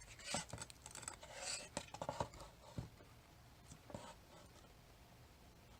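Light scrapes and small clicks of close-up handling, in a quick irregular cluster over about four seconds, then quiet room tone.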